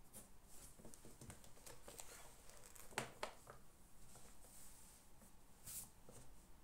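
Faint desk handling sounds of someone studying: scattered light clicks and rustles, with one sharper tap about three seconds in and a brief rustle near the end.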